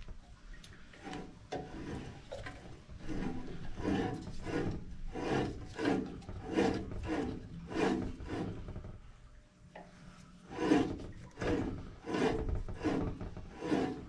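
Small tubing cutter being turned around a copper pipe, its wheel scoring the copper in a run of repeated strokes about two a second, with a short pause near the middle.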